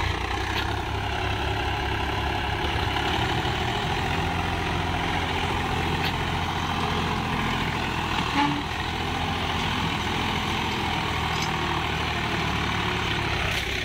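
Swaraj 735 XT tractor's three-cylinder diesel engine running steadily under load as the tractor works in deep sand.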